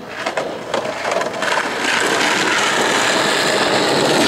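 Skateboard wheels rolling over asphalt: a few knocks in the first second and a half, then a steady rolling noise that grows louder and holds.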